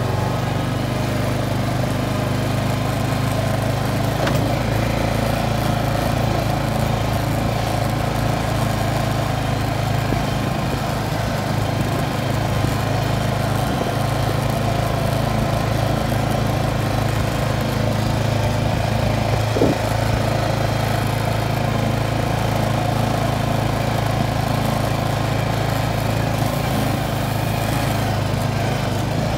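Quad ATV engine running steadily at low, even revs.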